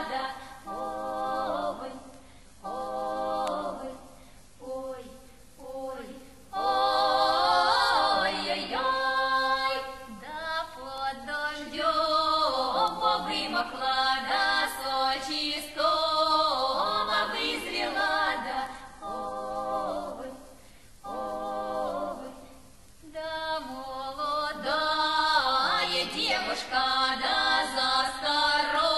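Women's vocal quartet singing a Russian folk song a cappella, in phrases with short breaks between them.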